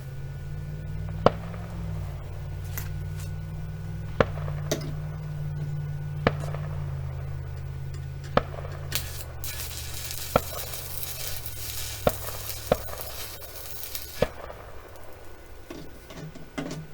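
Sharp gunshot cracks from a neighbour's shooting, about nine of them at irregular intervals, over a steady low hum. A hiss rises for about five seconds in the middle.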